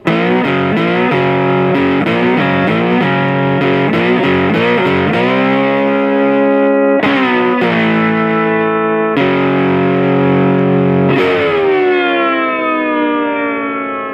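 Distorted electric guitar intro music. Quick repeated chords play for about five seconds, then a few long held chords follow. The last chord sags slightly in pitch as it rings out and fades near the end.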